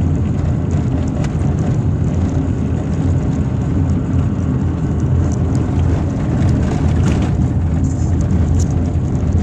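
Car cabin noise on a broken, potholed asphalt road: a loud, steady low rumble of tyres and running gear, with scattered light knocks and rattles as the car shakes over the bumps.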